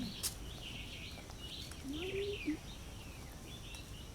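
Small birds chirping repeatedly in the background, with a short low murmur about two seconds in.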